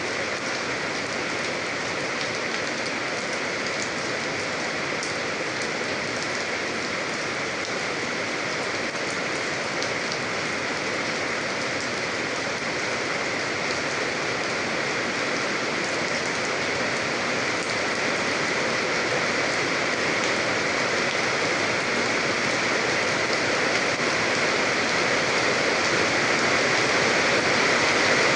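Steady rain falling on a surface, a dense even patter with fine drop ticks, growing slowly louder towards the end.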